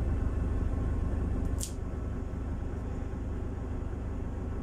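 A single sharp snip of a cat nail clipper cutting through a claw, about one and a half seconds in, over a steady low machine hum.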